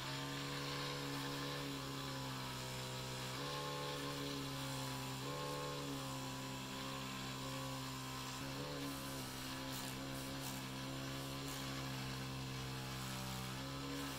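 Small hobby lathe's motor running with a steady electric hum, its pitch shifting slightly a few times as a cloth is pressed against the spinning resin-and-wood ring blank to polish it.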